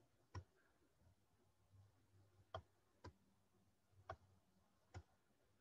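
Near silence broken by five faint, sharp clicks, spaced unevenly, from writing on a computer with a small digital pen.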